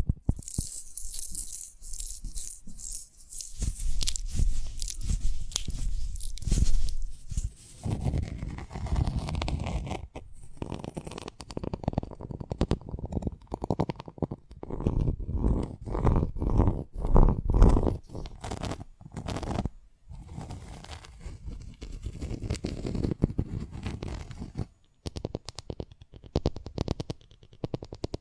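Close-miked crackling, rubbing and scraping as a large seed pod is handled and opened by hand, with many small clicks and tearing sounds; a fine high crackle at first gives way to heavier, deeper rubbing about eight seconds in.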